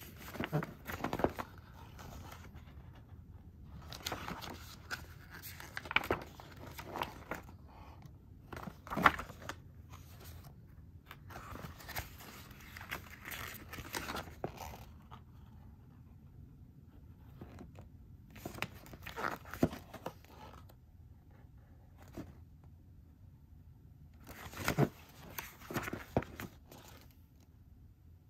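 Pages of a glossy paper booklet being turned and flipped by hand. They rustle in several short spells, with quiet pauses between.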